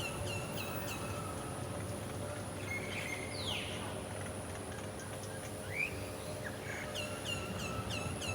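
Birds calling: a run of short, sharp chirps repeated about three times a second at the start and again near the end, with a few single swooping calls in between, over steady background noise.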